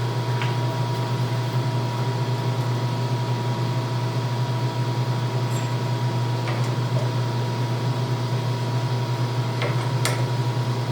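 Milling machine motor running steadily with a low hum and a thin whine, with a few light clicks over it.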